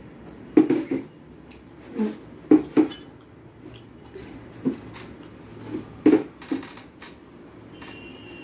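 Fingers mixing rice by hand on a stainless steel plate: irregular short clinks and taps against the metal, several in small groups a second or two apart.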